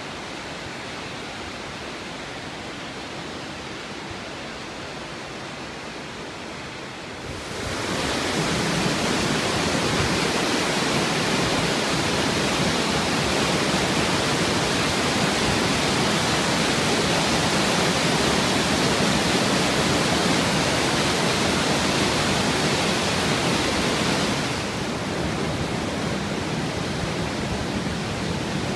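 Rushing water of a waterfall and whitewater rapids in a rocky river gorge: a steady, dense rush of water noise. About a quarter of the way in it jumps louder and brighter, and near the end it drops back somewhat.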